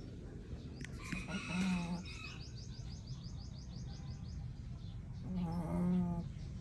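A sleeping pet snoring: two wavering snores about four seconds apart, with a quick run of faint high chirps between them.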